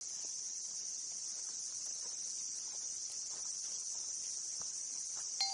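Steady, high-pitched chorus of insects buzzing without a break, with a few faint soft ticks beneath it. A chime-like note of music comes in at the very end.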